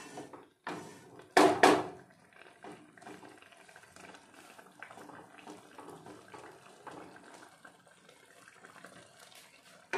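Grated carrots in sugar syrup bubbling softly in an aluminium pan, the water let out by the sugar still cooking off. A wooden-handled spatula stirs through them, with two loud scrapes against the pan in the first two seconds.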